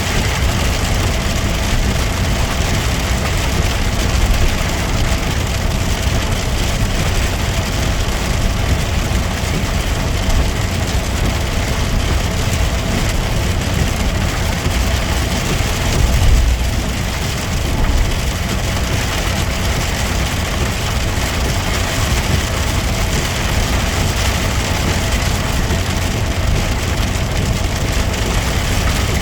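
Suzuki Jimny running steadily on the road, heard from inside the cabin as a constant low engine and road rumble. About sixteen seconds in there is a brief louder low rumble, like a bump.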